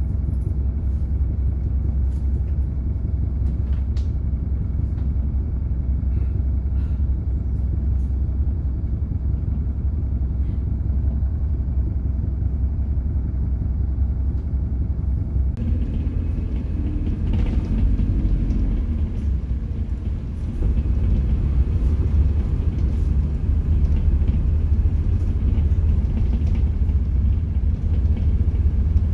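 Inside a city bus: a steady low engine rumble while the bus stands still, then about two-thirds of the way through the engine note rises as the bus pulls away. The rumble is louder from then on, with road noise.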